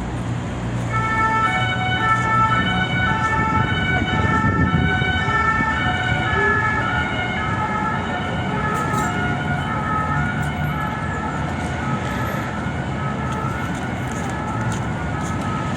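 Emergency vehicle's two-tone siren, alternating between two pitches with each tone lasting about half a second, starting about a second in, over street traffic.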